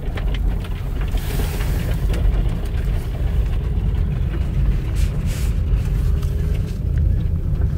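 Car driving on a rural road, heard from inside the car: a steady low rumble of engine and tyres, with a few light ticks and knocks, the clearest about five seconds in.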